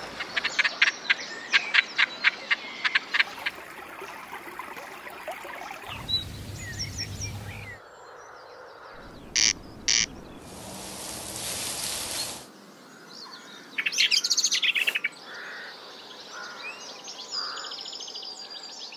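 A string of wildlife sounds. It opens with quick chirping calls at about four a second. About nine and a half seconds in comes a corncrake's call, two short harsh rasps, and more bird calls follow near the end.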